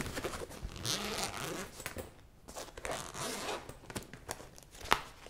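Zipper of a black nylon laptop bag being drawn open close to the microphone, in two rasping pulls with a short pause between, and a sharp click near the end.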